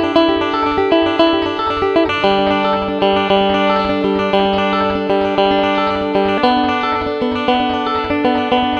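Deering five-string banjo picked in quick fingerpicked rolls, over long held notes of an effects-laden electric guitar that change chord twice.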